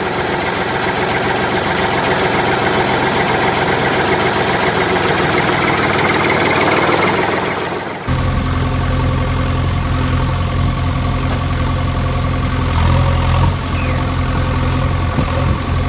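Engine running with a dense, rough sound, then an abrupt cut about halfway to a steady, low engine idle.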